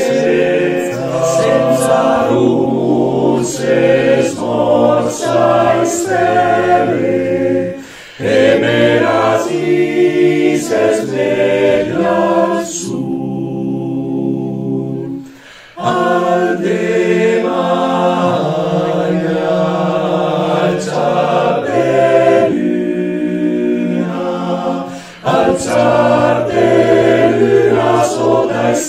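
Male-voice alpine choir singing a cappella in several parts, with sustained chords in long phrases. Short breaks separate the phrases, and a softer held chord comes around the middle.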